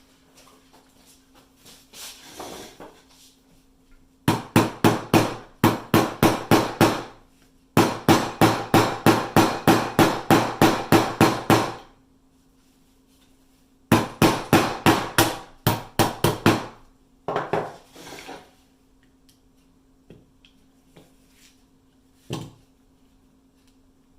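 Light hammer taps on a pin going into a Glock pistol frame: three runs of quick, even strokes, about four a second, then a few single taps near the end.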